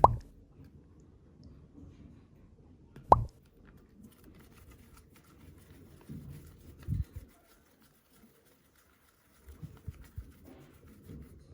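Soft super clay being handled by hand, with a sharp plop or slap at the start and another about three seconds in, then quieter soft knocks and rustles of the clay being pressed.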